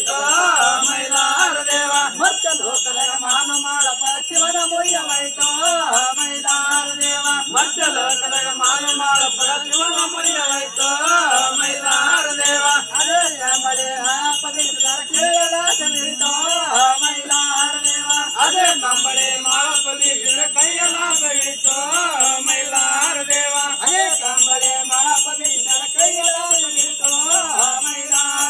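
Folk devotional music: a wavering melody line over the steady jingling of small bells.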